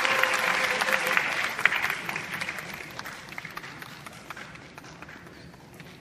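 Audience applause fading out over about four seconds, dying down to scattered single claps and light steps on the stage.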